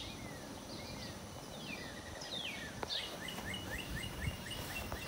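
Birds calling: a few short falling whistled notes, then a run of quick repeated chirps at about four a second, over a faint steady high drone.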